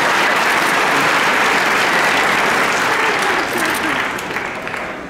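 Audience in a large hall applauding, the clapping dying away over the last second or so.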